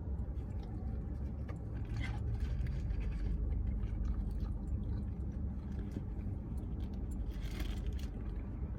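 Steady low rumble of a car heard from inside the cabin, with soft chewing and a few light clicks and rustles of food handling.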